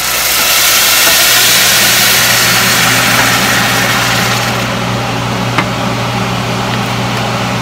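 Water poured into a hot skillet of frying onions, garlic and ginger: a loud sizzling hiss that eases after about four and a half seconds into a lower bubbling as the water boils. A steady low hum runs underneath.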